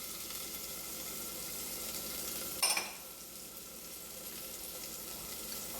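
Masala of spices and peanuts sizzling steadily in hot oil in a pan, with one short knock about two and a half seconds in.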